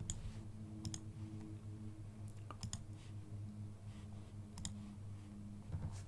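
Several scattered computer mouse clicks over a faint, steady low hum.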